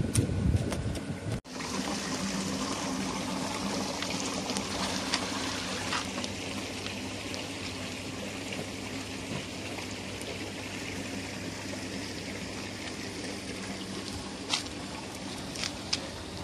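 Water trickling and splashing steadily into outdoor fish ponds, a continuous hiss with a faint low hum beneath it. A short louder rumble opens the clip and cuts off about a second and a half in.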